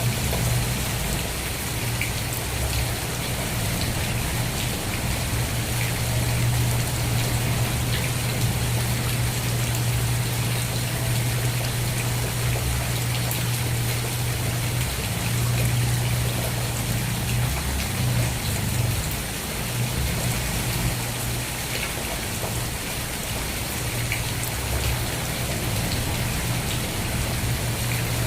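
Steady rain falling, with scattered drops ticking, over a constant low hum that falters briefly about two-thirds of the way through.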